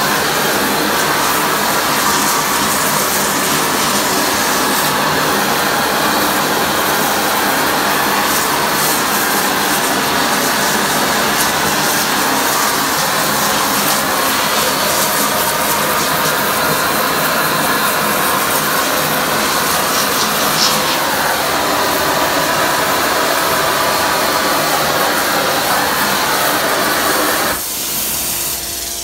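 Steady loud hissing rush of a torch heating water-filled stainless steel tubing, with steam venting off it. The hiss drops off suddenly near the end.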